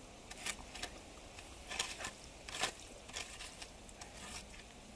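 A wooden stick scraping and prodding through mud and stones in a shallow stream bed, in a handful of short, irregular scrapes.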